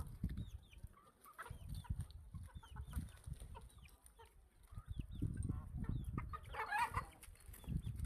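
Backyard chickens: chicks peeping in many short, high, falling notes throughout, with a louder hen cluck about seven seconds in, over low rumbling noise.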